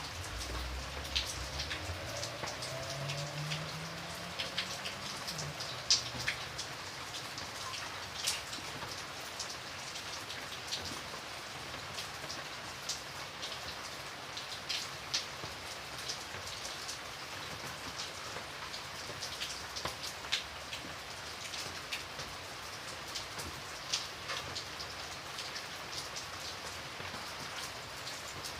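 Steady rain, a constant hiss with individual drops ticking close by at irregular moments, a few of them much sharper and louder than the rest.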